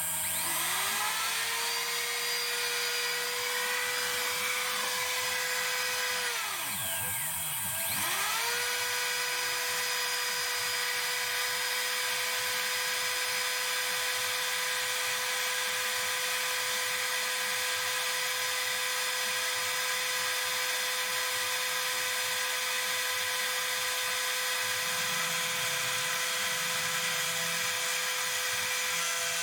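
Home-built desktop CNC milling machine running: a steady motor whine that climbs in pitch as it speeds up and holds steady. About seven seconds in it slows right down and briefly dips, then climbs back to the same pitch and runs on steadily.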